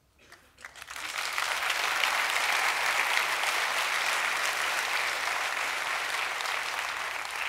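Audience applauding, swelling up within the first second and holding steady, easing a little near the end.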